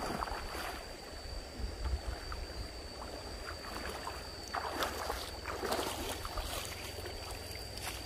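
Stream water splashing and sloshing in irregular bursts, busiest around the middle, over a low wind rumble on the microphone and a steady high-pitched tone.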